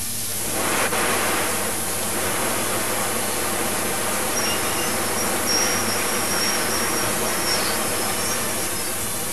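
Belt conveyor carrying milled peat, running with a steady mechanical noise that swells in about half a second in. A faint high squeal sits over it through the middle.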